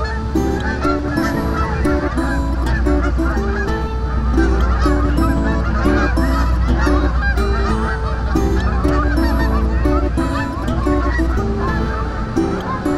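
A large flock of Canada geese honking, many calls overlapping without pause, over a steady low rumble that eases off near the end.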